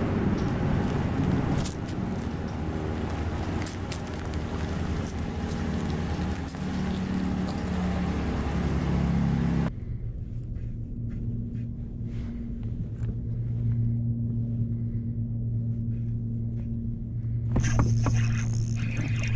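Pickup truck engine running through its dual exhaust, the pitch shifting as it revs, then cutting off abruptly. After that a steady low hum continues, with a brief sharper clatter near the end.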